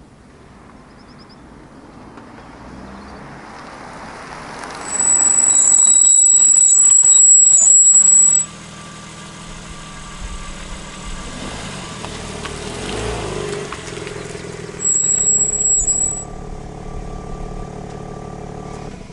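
BMW M3 (G80) M Compound brakes squealing while the car slows: a loud, steady, high-pitched squeal lasting about three seconds, starting about five seconds in, and a second, shorter one near the end, over tyre and road rumble. The owner takes the squeal for a defect, which a BMW dealer eventually accepted for warranty repair.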